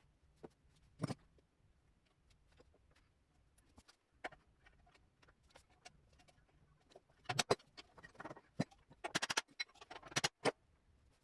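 Scattered light clicks and knocks of tools and parts being handled at a workbench, with a few louder sharp knocks in the second half.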